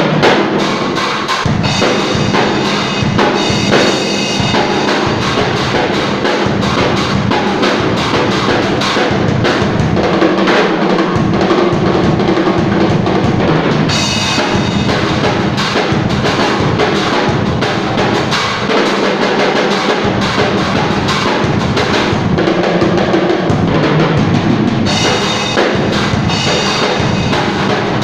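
Drum kit played without a break, a steady beat of bass drum and snare with fuller, brighter cymbal-heavy passages a few times along the way.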